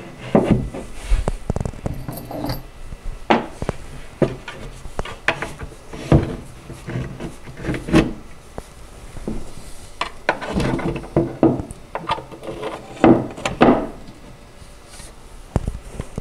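Wooden furniture panels knocking and sliding against each other and the table as they are fitted together and turned over, a string of irregular knocks and scrapes.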